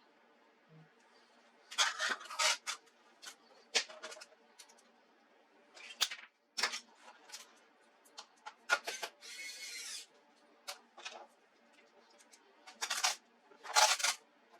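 Irregular clicks, taps and short scrapes of small plastic and metal laptop parts being handled during disassembly or reassembly, over a faint steady hum.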